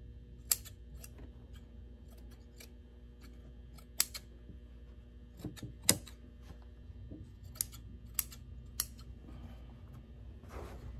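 Upholstery shears snipping through Dacron batting: a string of sharp, irregular clicks of the blades closing, with the soft handling of the batting between cuts.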